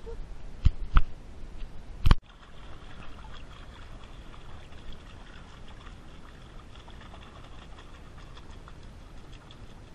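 Pool water splashing and lapping around a swimming golden retriever puppy, with three sharp knocks in the first two seconds, the loudest a little after two seconds. After that the sound drops suddenly to quieter, steady lapping of pool water.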